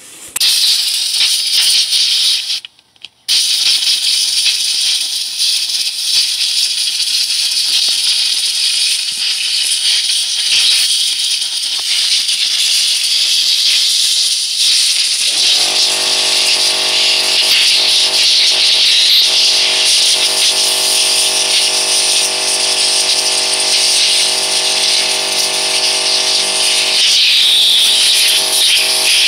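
Compressed air hissing hard from an air blow gun as it blows dirt out of a Stihl BG 86 blower's pleated air filter, which is being cleaned rather than replaced. The hiss breaks off briefly near the start, and about halfway through a steady hum of several pitches joins it.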